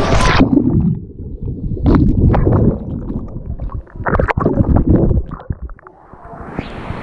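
Muffled gurgling and sloshing of pool water, heard with the camera's microphone dipped under the surface. The sound goes dull just after the start, comes in uneven bursts of bubbling and splashing, and opens out again near the end as the camera comes back above the water.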